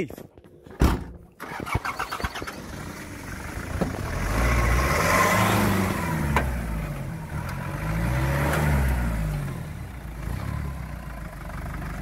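A pickup truck's car door shuts with a sharp thump about a second in. Then the engine starts and is revved up and down several times.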